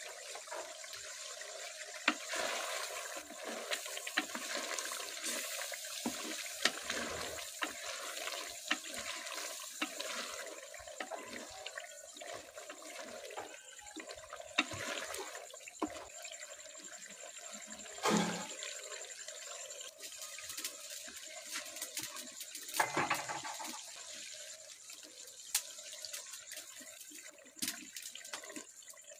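Chicken masala curry cooking in a karahi: liquid bubbling and sizzling with a steady crackle of small pops. Two louder swishes come about eighteen and twenty-three seconds in.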